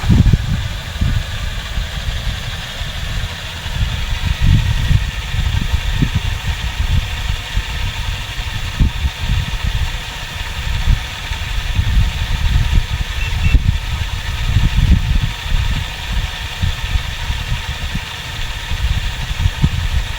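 Small engine running steadily at a constant pace, over an uneven low rumble.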